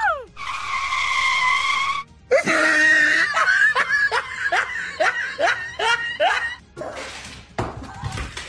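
High-pitched human laughter: a long held squeal, then a fast run of rising laughs, about two or three a second.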